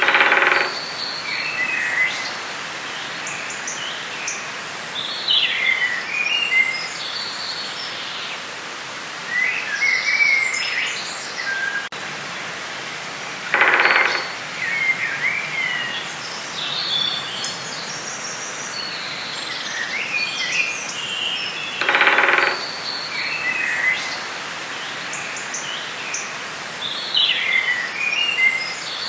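Forest ambience: several birds singing and chirping over a steady background hiss. A louder, harsher call about a second long stands out three times: near the start, about halfway and about two-thirds through.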